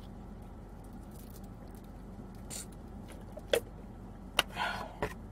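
A plastic sports-drink bottle being handled and set down: a few small clicks and a short rustle in the second half, over a steady low hum in the car cabin.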